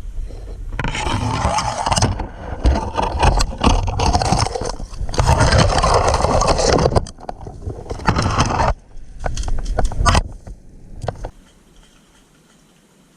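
Loud scraping and rustling close to the microphone, in stretches, that stops about eleven seconds in.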